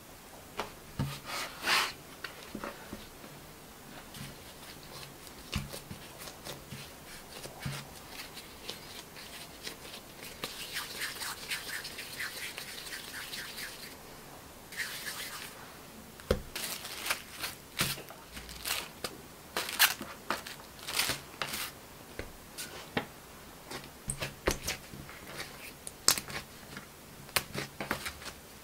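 Hand-shaping bread dough: a plastic bench scraper presses through dough onto a silicone mat with a few sharp taps, then the dough pieces are rubbed and rounded into balls against the board, with soft rubbing and many light taps and clicks as the balls are handled and set down on plastic wrap.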